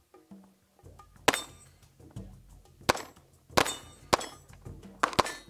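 Springfield Armory XD-S Mod.2 compact .45 ACP pistol firing single shots, about six at uneven intervals, starting about a second in.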